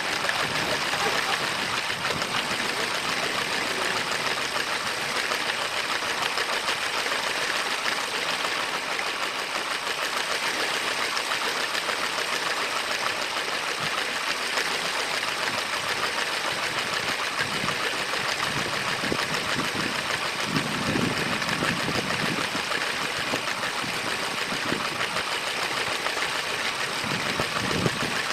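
A LEGO train running steadily along its track, with a fast, even rattle from its small electric motor, gears and wheels.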